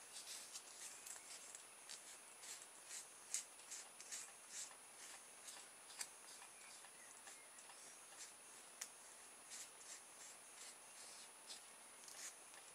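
Faint, quick, scattered rustles and light clicks of hands handling a polystyrene hull and a thin sheet of plastic, played back at high speed, over a faint steady high-pitched whine.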